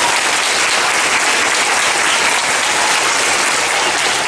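Audience of schoolchildren applauding steadily, a dense wash of many hands clapping.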